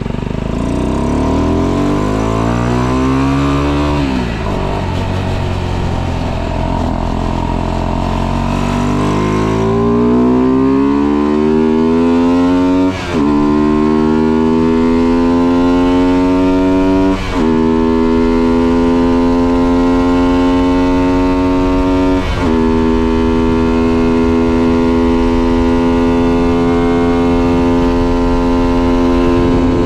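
125cc motorcycle engine, fitted with a modified intake and exhaust and with its ignition advanced to 42 degrees, accelerating through the gears. The revs climb, fall back about four seconds in and climb again, then dip briefly at three quick gear changes before holding steady at cruising speed near the end.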